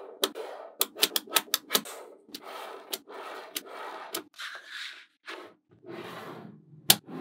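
Small magnetic balls clicking sharply as clusters snap onto a slab of magnet balls, with softer scraping between the clicks. A quick run of clicks comes in the first two seconds and one loud click comes near the end.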